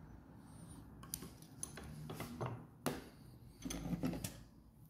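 Light clicks and small metal knocks of a thin metal tube being handled and set into the jaws of a bench vise, a few scattered taps with a short cluster near the end.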